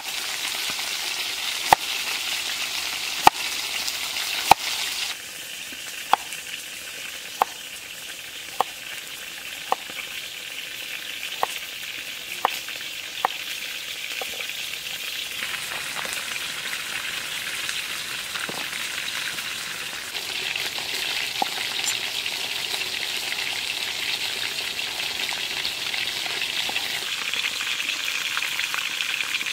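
Cleaver chopping a carrot on a wooden chopping board: single sharp knocks about once a second through the first half, over a steady sizzling hiss. In the second half only the sizzle of chicken frying in a wok goes on, growing louder after about 20 seconds.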